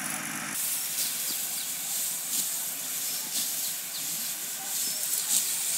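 Steady outdoor hiss with a few brief, faint high chirps. A low engine hum cuts off suddenly about half a second in.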